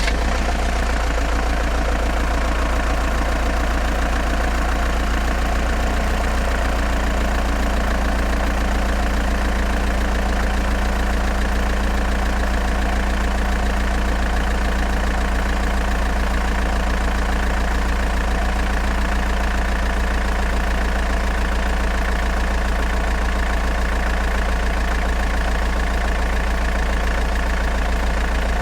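Iveco Daily 3.0 HPI van's four-cylinder turbodiesel engine idling steadily.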